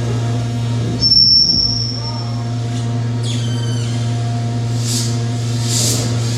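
Improvised noise and drone music from DIY oscillators and circuit-bent electronics: a steady low electronic drone throughout, a piercing high tone about a second in, a stepped falling squeal a little after three seconds, and hissing noise swells near the end.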